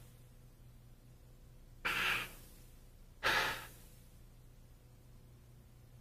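A man breathing heavily into a microphone, two breaths about a second and a half apart, over a faint steady hum.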